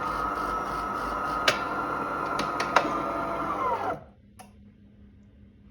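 De'Longhi Dinamica bean-to-cup coffee machine's built-in grinder running steadily as it grinds beans for a coffee, with a couple of sharp clicks, then winding down in pitch and stopping about four seconds in.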